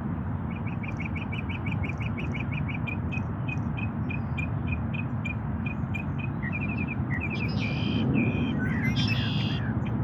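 Songbirds calling: a fast run of short, high chirps, about five a second at first and then slowing, followed near the end by a few different, fuller calls and a sweeping call, over a steady low background rumble.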